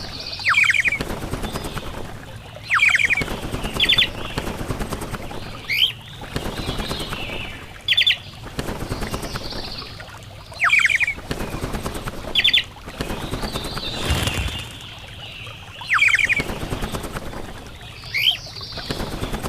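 Birds calling over and over, each call a quick group of three or four high notes, falling slightly in pitch, repeated every second or two, with a fluttering, rustling noise between the calls.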